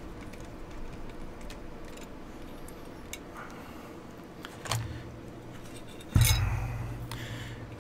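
Light metallic clicks as a screwdriver turns the screw holding the Mosin Nagant trigger, then a knock and, about six seconds in, a loud metal clunk with ringing that fades over a second or so as steel rifle parts and tools are handled on the work table.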